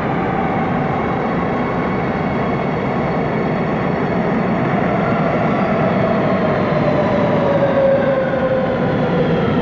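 Madrid Metro train running along the platform: a steady loud rumble with a whine that slowly falls in pitch, as the train slows.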